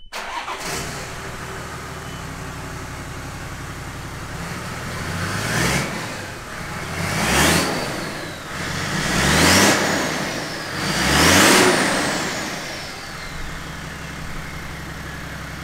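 Toyota 1HD-FTE 4.2-litre straight-six turbo-diesel running with no exhaust fitted, so it sounds straight off the manifold. It idles, is blipped four times about two seconds apart starting about five seconds in, and then drops back to idle. A high turbo whine climbs with each rev and slides down after the last one.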